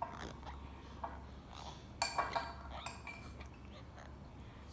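A baby mouthing and chewing a rubber giraffe teether, making small clicks and smacks, with light knocks of the toy against a plastic high-chair tray. The sounds come in a quick cluster about two seconds in.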